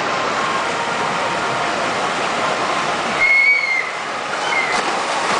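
Steady rushing of water pouring from water-slide outlets into a pool. About three seconds in, a short high whistle-like tone sounds, followed a second later by a briefer one.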